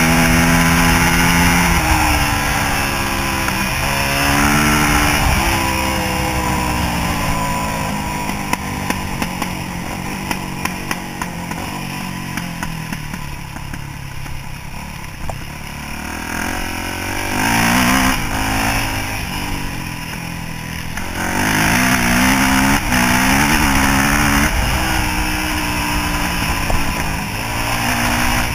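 Yamaha YZ426F four-stroke single-cylinder dirt bike engine being ridden, revving up and down through the gears over wind rush. It eases off and runs quieter around the middle, then picks up again with a run of rising revs.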